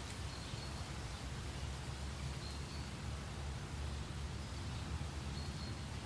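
Meadow ambience: steady wind with a low rumble and an even hiss, and a few faint, short, high bird calls scattered through it.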